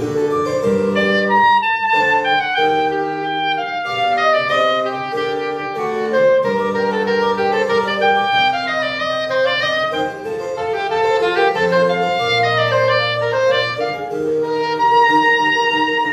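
Soprano saxophone playing a classical solo in fast runs of notes rising and falling, over held low accompaniment notes.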